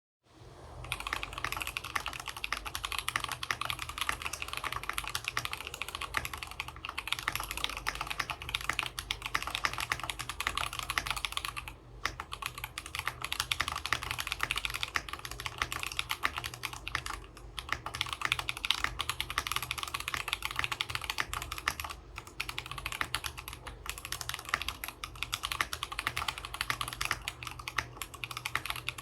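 Fast, continuous typing on a TX65 mechanical keyboard with lubed Holy Panda tactile switches, an aluminium plate, PBT keycaps and a tape-modded PCB. The keystrokes run together in a dense clatter, broken by a few brief pauses.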